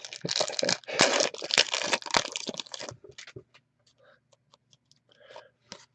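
A hockey card pack's foil wrapper being torn open, crinkling for about three seconds, followed by a few sparse light clicks as the cards are handled.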